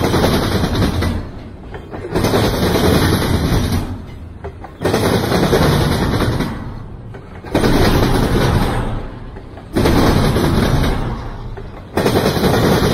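Double-stack intermodal container well cars rolling past on the rails, their wheels clattering in a steady rhythm: a loud rush of rail noise that starts sharply and fades, about every two and a half seconds as each car goes by.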